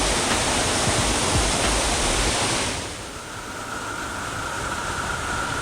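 Waterfall and fast current rushing, a steady loud roar that drops to a quieter, duller rush about three seconds in.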